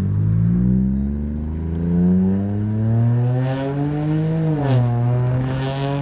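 BMW car engine accelerating, its pitch rising steadily through one gear for about four seconds, then dropping sharply at an upshift and running on at a steady pitch.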